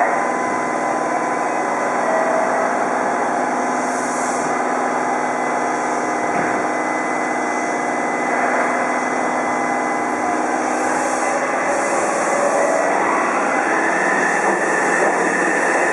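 A Yokohama subway 3000R-series electric train stands at the platform with a steady electric hum. About 13 seconds in it starts to pull away, and a whine rises in pitch as its traction motors take up power.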